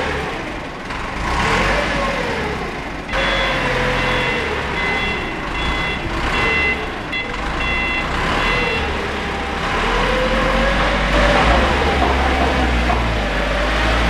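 Heli forklift engine running and revving as it manoeuvres, with its reversing alarm beeping from about three seconds in to about nine seconds.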